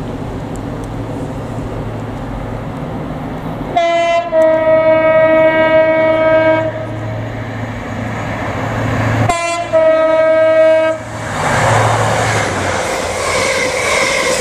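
Class 43 HST power car sounding its two-tone horn twice on the approach, each blast a brief high note dropping to a longer low one, over a steady low engine rumble. Near the end the train rushes past with the noise of wheels on the rails.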